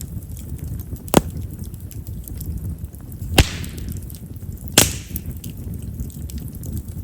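Chestnut-wood campfire burning with a low steady flutter of flame, and three sharp pops from the wood about a second, three and a half seconds and nearly five seconds in, the last two trailing a short hiss. Chestnut's large vessels make it a wood known for popping.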